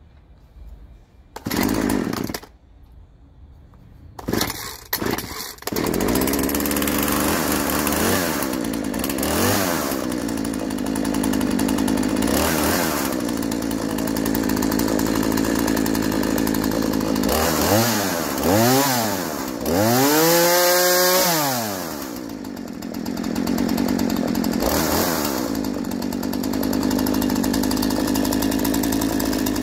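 Husqvarna 236 X-Torq two-stroke chainsaw being pull-started: short bursts as the cord is pulled, then it catches about six seconds in and runs at idle. The throttle is blipped several times, the engine revving up and dropping back to idle, with the longest rev about twenty seconds in. The saw has just been serviced after a loose spark plug left it idling poorly.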